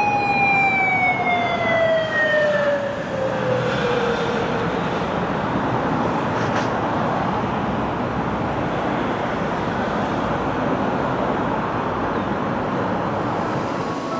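A police siren winding down, its pitch falling steadily as it fades out over the first four or five seconds, over steady city traffic noise.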